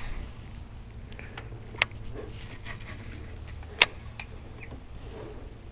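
Two sharp clicks about two seconds apart over a steady low rumble, with a few fainter clicks between.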